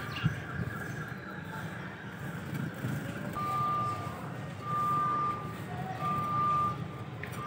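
Vehicle reversing alarm beeping: three long, steady beeps of one pitch about a second and a half apart, starting about three seconds in, over a low engine rumble. Before the beeps a steady high whine sounds, and a sharp click comes just after the start.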